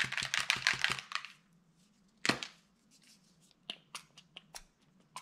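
Pump-spray bottle of Distress Oxide ink spritzed onto a craft mat: a rapid run of spritzes and clicks in the first second, one louder spray a little over two seconds in, then scattered light clicks and taps.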